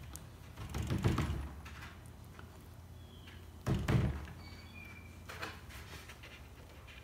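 Two dull wooden thumps, about a second in and again near the middle, as plywood panels are handled and knocked against each other and the workbench to bring the glued edges flush.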